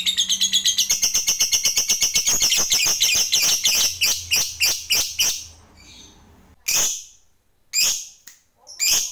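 Lovebird giving its long chattering trill (ngekek), about ten high notes a second, slowing and breaking off about five seconds in, then a few sharp single calls.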